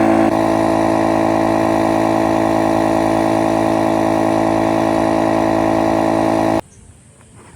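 A motor running steadily at one even speed, cutting off abruptly about six and a half seconds in.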